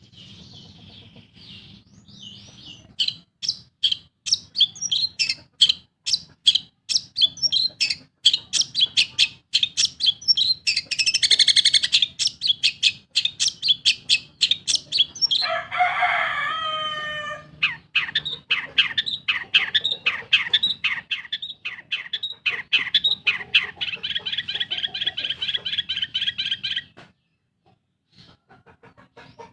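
Long-tailed shrike singing loudly: long runs of rapid, sharp, high chirps, broken midway by a buzzy burst and then a lower, harsh chatter. It ends in a fast, rattling trill that stops abruptly shortly before the end.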